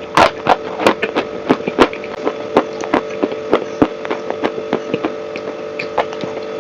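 Dry chalk with clay paste crunching while being chewed, close to the microphone: sharp crisp crunches about two a second that grow fainter toward the end, over a steady hum.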